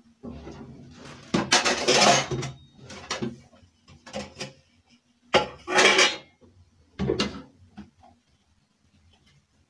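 Stainless-steel bowls and plastic dishes clattering as they are stacked into a wire dish rack, in several bursts. The loudest come about two seconds in and again around six seconds in.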